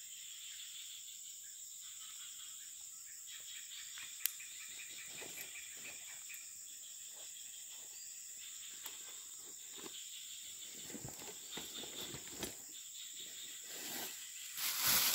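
Insects calling steadily in a high, pulsing chorus, with a sharp click about four seconds in and scattered faint rustles. A louder burst of rustling noise comes near the end.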